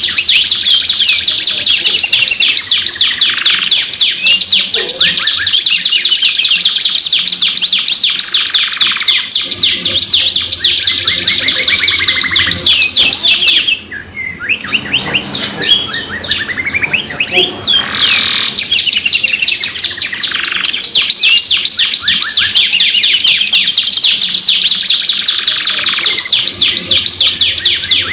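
Canaries singing long, continuous rolling trills of rapid, high chirped notes. About halfway through the song thins out and softens for a few seconds, then the full, dense trilling comes back.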